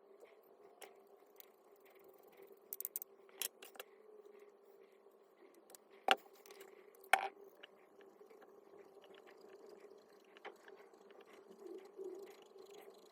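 Scattered light clicks and taps of parts and tools being handled while working on an electric hammer, with two sharper clicks about six and seven seconds in.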